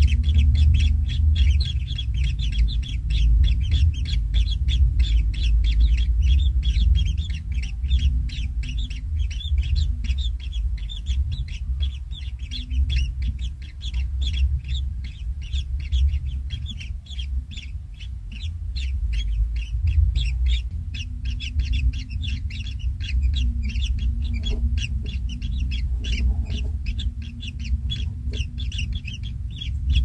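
White-throated kingfisher nestlings begging: rapid, repeated high chirps that run on without a break, over a steady low rumble.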